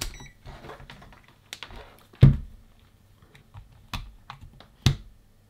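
Scattered clicks and taps of handling a digital multimeter and its test leads: the rotary dial being turned, then probes set against a cordless drill battery pack's terminals. One louder knock comes about two seconds in, and sharper clicks near four and five seconds.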